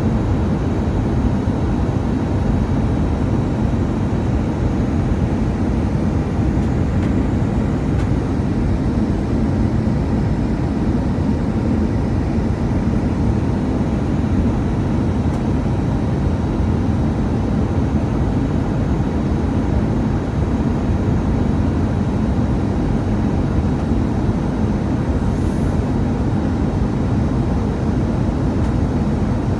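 Steady cabin noise of an Airbus A319 airliner on approach, heard from the front row: a low, even rush of air and engine hum that does not change in level.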